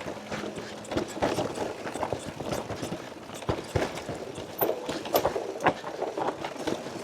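Mountain bike rattling over a rough, rocky trail: a rapid, irregular run of knocks and clatter from the tyres striking rock and the frame and chain shaking.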